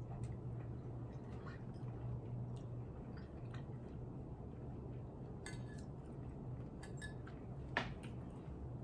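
Cutlery clinking and scraping against a plate a handful of times, the sharpest clink about three-quarters of the way through, over a steady low hum.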